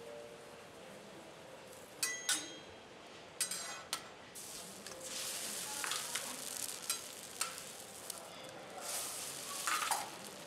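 Metal spatulas clinking and scraping on a steel teppanyaki griddle, then eggs cracked onto the hot griddle start sizzling about four seconds in. The sizzle swells again near the end as a second egg goes down, with sharp clicks on top.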